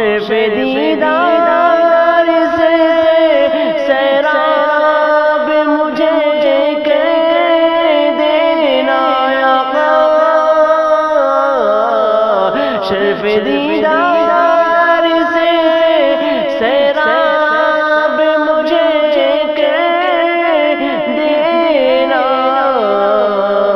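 Wordless singing of a naat: a slow, ornamented vocal melody of held, wavering notes with no clear words.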